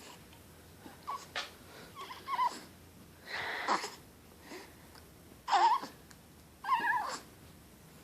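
A pet hiccuping: about six short, squeaky hics at irregular intervals, a second or two apart.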